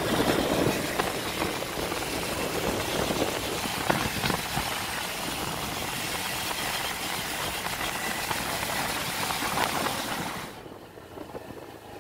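Riding a Honda Activa scooter at speed: a steady rush of wind over the microphone and road noise, with the engine running underneath. About ten and a half seconds in, the wind noise drops away and it turns much quieter.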